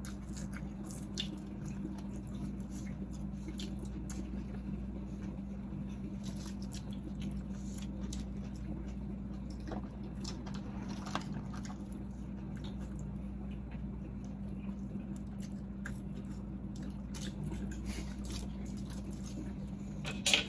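Close-up eating sounds: chewing of cooked sea snails and fries, with scattered small clicks as snail shells are picked from the tray and handled, and one sharper click near the end. A steady low hum runs underneath.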